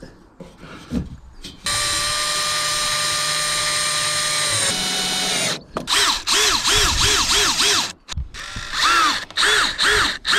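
DeWalt cordless drill driving screws through a Maxxair roof fan's mounting flange into the van roof. The motor whines steadily for about three seconds, dropping slightly in pitch near the end. Then come two spells of a whine that rises and falls about four times a second.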